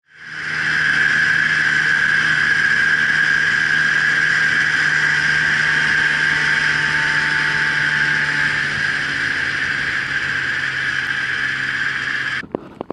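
Polaris Indy snowmobile engine running steadily at cruising speed, heard from on board the moving sled. It fades in at the start and cuts off abruptly near the end.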